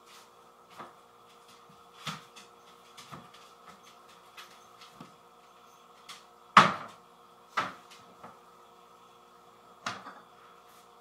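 Kitchen cupboard doors and drawers opening and shutting: a string of separate knocks and clacks, the loudest about two-thirds of the way through, over a faint steady hum.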